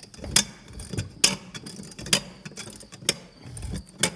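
Sharp metallic clanks and clicks, about five spread unevenly over a few seconds, from hand tools and seat hardware as a car seat is pried and wrenched out of its mounts.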